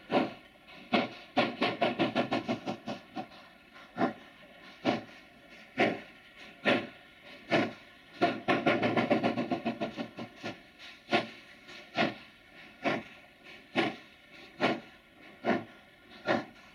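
JS class 2-8-2 steam locomotive working hard to get away from a standstill, its exhaust beats slow and sharp at about one a second. Twice, about a second in and again about eight seconds in, the beats suddenly race to several a second and then fall back, the sign of the driving wheels slipping.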